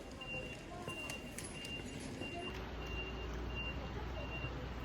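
Repeating electronic warning beep, a single high tone pulsing about one and a half times a second, with a low vehicle rumble setting in about halfway through.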